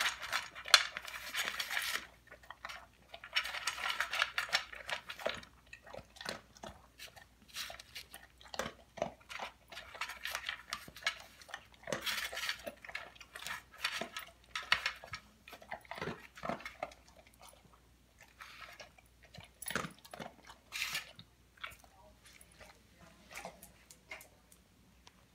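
Dog eating from a bowl: irregular crunching and chewing, with clinks of the bowl. It grows sparser in the last third.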